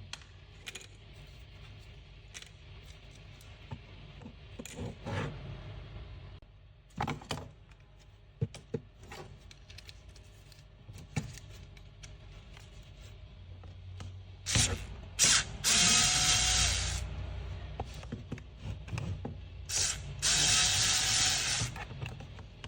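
Scattered clicks and knocks of tools and parts being handled, then two bursts of a small power tool running, each about two seconds long.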